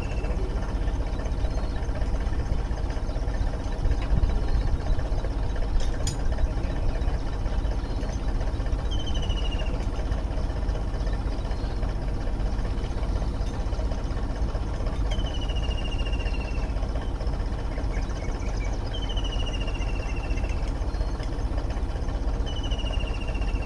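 Tractor's diesel engine running steadily under load, driving an irrigation water pump. A short falling whistle sounds faintly over it four times.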